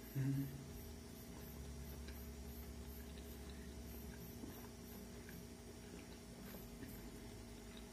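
Quiet eating: a metal fork gives faint scattered clicks against the plate while the man chews. Just after the start there is a short hummed "mm" from him.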